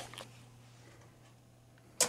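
Near silence: a faint steady low electrical hum from the powered-up machine, with a faint click right at the start.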